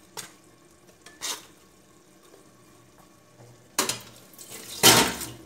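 Roasted tomatoes being dropped into a glass blender jar: two short knocks early, then a louder clattering, rustling stretch near the end as the filled jar is handled.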